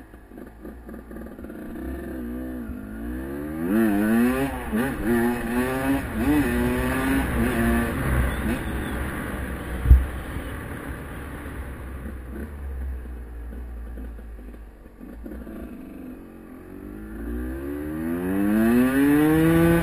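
Husqvarna WR 250 single-cylinder two-stroke engine accelerating through the gears, its pitch climbing and dropping back several times in a row. It then runs quieter, with a sharp knock about halfway through. Near the end it climbs in pitch again in one long rise.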